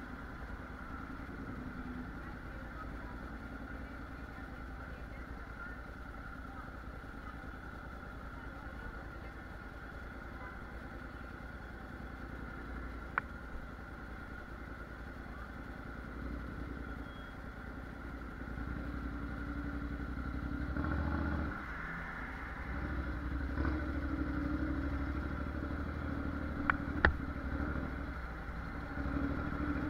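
Honda NC750X DCT's parallel-twin engine running low at a crawl, then picking up and getting louder about two-thirds of the way through as the bike moves on. There are a couple of sharp clicks along the way.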